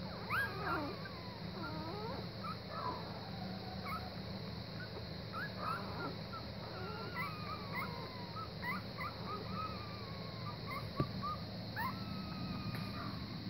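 Week-old German Pinscher puppies whimpering and squeaking: a steady run of short, high-pitched cries that rise and fall in pitch, over a steady hum. One sharp click comes near the end.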